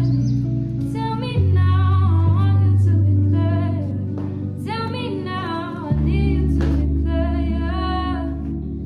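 Background music with a woman singing over sustained bass notes that change pitch a few times.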